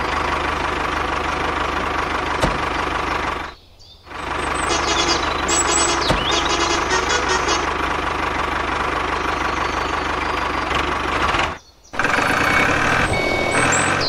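Tractor engine sound effect running steadily as the toy tractor drives. It cuts out briefly twice, once about four seconds in and once near the end.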